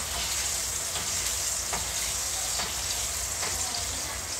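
Salmon fillet frying in butter in a pan, a steady sizzle, with a few light clicks of a utensil against the pan about once a second.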